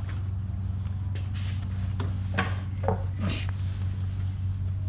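Handling noises: a cardboard box and cloth rustling, with a few light knocks, over a steady low hum.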